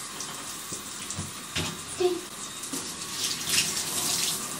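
Bath water running into a bathtub and splashing over a dog's coat as he is washed, with the splashing heavier a little past three seconds in. A couple of light knocks come in the first two seconds.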